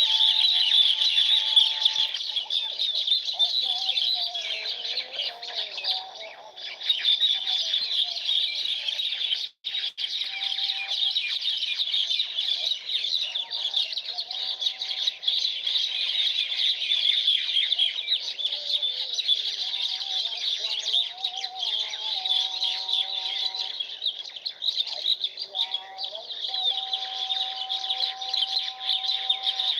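A dense chorus of many small birds chirping continuously, with lower, longer whistled calls from other birds coming and going beneath it. The sound cuts out for a split second about ten seconds in.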